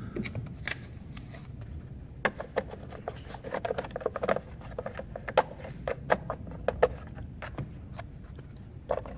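Plastic cover of a 2014 Acura MDX's under-hood fuse box being handled and fitted back onto the box, with a series of irregular sharp plastic clicks and taps as it is positioned and pressed into place.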